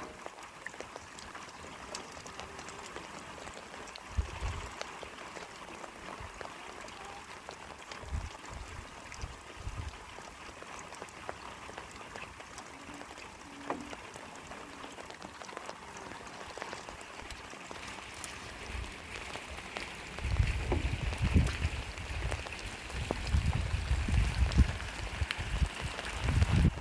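Steady rain pattering, with scattered drops ticking. In the last several seconds heavy low rumbling bursts come in over it.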